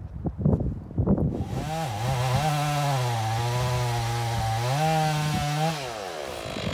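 Chainsaw running: after a few knocks it comes up to speed, its pitch drops and holds lower while cutting wood, then rises again briefly before the saw cuts off.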